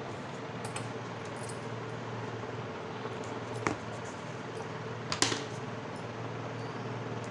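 A steady mechanical hum, like a fan running, with a sharp click about three and a half seconds in and a louder double click about five seconds in.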